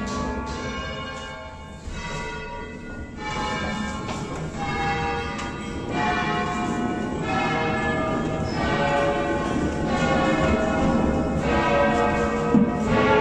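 Verona Cathedral's ring of eleven bronze bells, tuned in A, rung full-circle from ropes in the Veronese style. Single bell strokes come one after another, roughly one every second or so, each ringing on with its overtones into the next.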